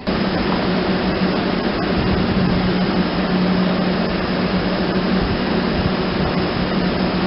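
Class 31 diesel locomotive running, a steady loud drone with a constant low hum that begins abruptly.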